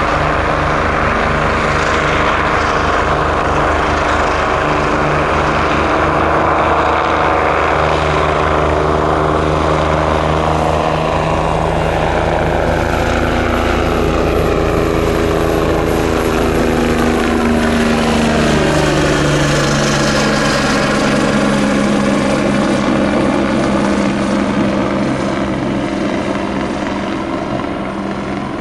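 Air ambulance helicopter taking off: steady rotor and turbine sound whose pitch drops over several seconds past the middle as it passes and flies away, fading slightly near the end.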